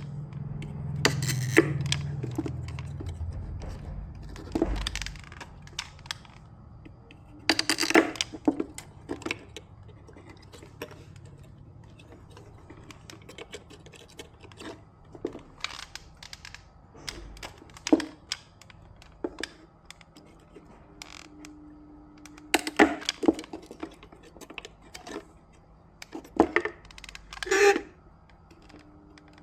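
Irregular clicks, taps and light clatter of small hard tools and parts being handled, with a few louder knocks in clusters.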